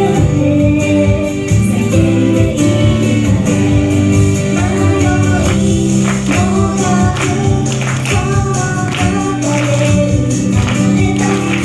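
J-pop idol song performed live: several female voices singing together over an instrumental backing.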